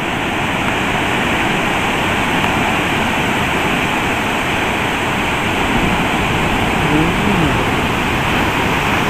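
Steady rushing of ocean surf and wind on an open tidal flat, with waves breaking on the outer reef.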